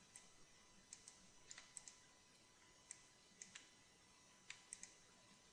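Faint, scattered computer mouse and keyboard clicks, about a dozen short clicks spread over a few seconds, often in twos and threes, as vertices are picked out one by one.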